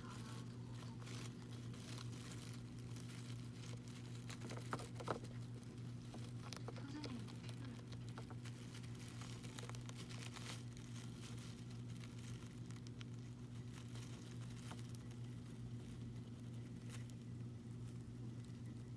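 Faint rustling, crinkling and small taps from a golden hamster moving about and handling its food, with two sharper clicks about five seconds in. A steady low electrical hum runs underneath.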